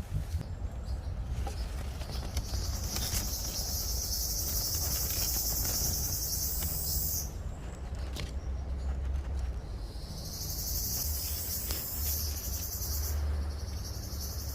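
Insects singing in a high, hissing buzz that goes on for several seconds at a time, breaks off and starts again, over a low rumble.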